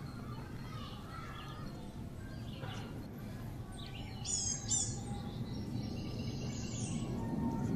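Small birds chirping, with a short run of bright, high, falling chirps about four seconds in, over a steady low background hum.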